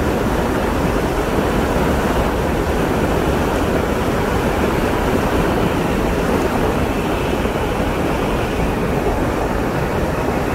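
Steady rush of wind on the microphone mixed with road noise from a vehicle moving at speed on asphalt, with no engine note standing out.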